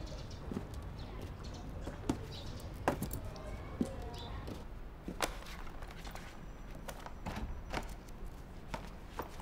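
Quiet ambience with a low steady hum and scattered light clicks and knocks at uneven intervals, the sharpest about three and five seconds in.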